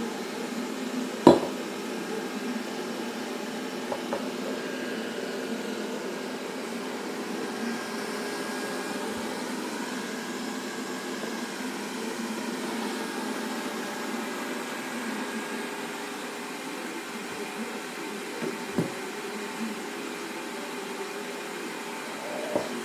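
Robot vacuum cleaner running with a steady motor hum, with a sharp click about a second in and a few light knocks later.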